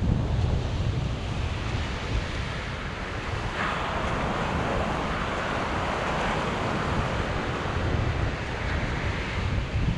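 Sea waves breaking and washing up the beach, with a fresh wave hissing in about a third of the way through. Wind buffets the microphone with a low rumble throughout.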